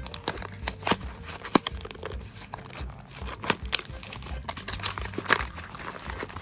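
A small cardboard blind box being opened by hand: fingers pry and fold back its flaps with crinkling and a string of irregular sharp clicks and crackles.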